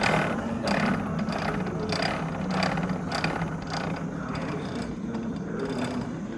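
Mechanical clicking and rattling from a hand-turned museum exhibit that spins planet models, with repeated ratchet-like clacks at a bit under two a second. A steady low hum of the exhibit hall lies underneath.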